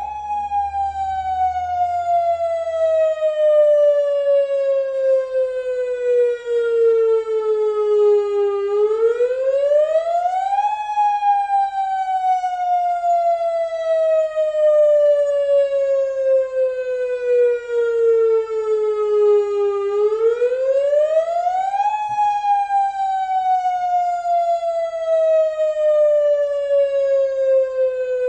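Warning siren wailing in a slow repeating cycle: its single tone falls gradually for about eight seconds, then sweeps quickly back up in about two, twice over.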